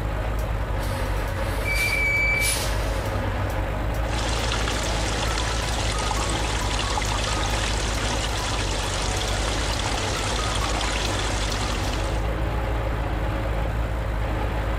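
Water pouring down in a heavy gush from a tank truck's overhead nozzle for about eight seconds, over a steady low truck engine rumble. A short hiss sounds about two seconds in.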